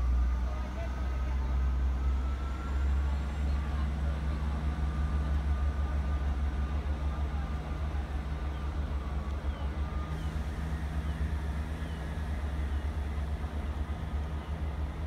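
Diesel multiple unit pulling away from the platform, its engine giving a steady low rumble with a faint whine that slowly drops in pitch as it moves off.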